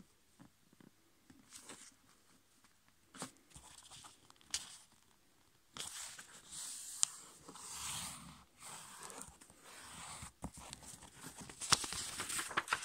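A sheet of A5 copy paper being handled and folded on a table: a few faint taps and rustles at first, then, from about halfway through, a longer stretch of paper rustling and sliding as the fold is laid over and pressed down, with one sharp tick a second or so later.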